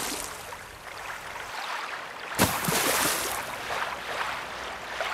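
Sound effects for an animated logo: a sudden splash-like hit about two and a half seconds in, then a rush of water-like noise that fades away.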